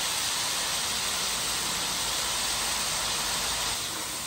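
Chow mein (chicken, vegetables and boiled noodles) sizzling steadily in hot oil in a pan, an even hiss that drops a little near the end.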